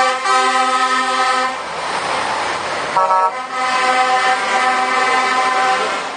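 Truck horn sounding in two long blasts, the first ending about a second and a half in and the second starting about three seconds in and running almost to the end, over the noise of a lorry passing close by.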